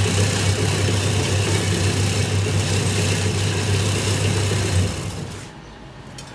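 Electric herb-chopping machine with a rotating stainless-steel bowl running, a steady low motor hum under a broad whir as herbs are chopped; it shuts off about five seconds in and the sound drops away.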